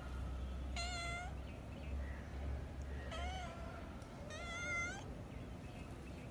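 Kitten meowing three times, short high calls about a second and a half apart, the last one the longest: a kitten calling to an adult cat to play.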